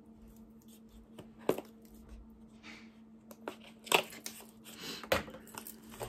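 A cardboard perfume box being handled and opened: a few sharp clicks and taps with soft rustling of the packaging between them.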